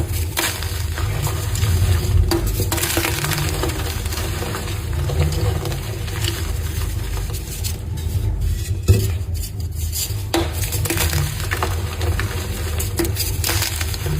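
Gym chalk being crushed and crumbled, a continuous crunching and crackling of many small clicks, over a steady low hum.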